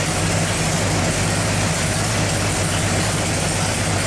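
383 cubic-inch small-block Chevrolet stroker V8 idling steadily after its dyno pull.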